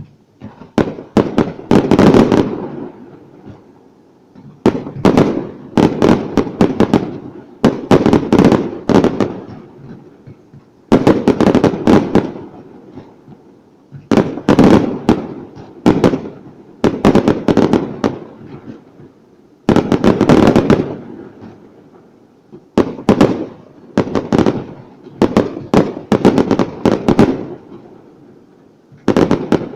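Fireworks display: shells bursting in rapid clusters of sharp bangs, a volley about every three seconds, each followed by a rumbling, echoing decay.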